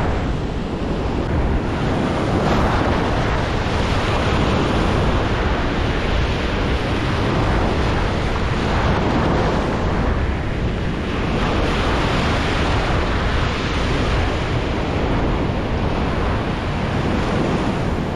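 Ocean surf breaking and washing up the sand, with wind buffeting the microphone. It is a steady rush of noise that swells and eases as the waves come in.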